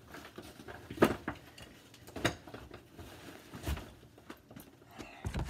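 Scattered soft knocks and rustles, four or five in all, with quiet room noise between.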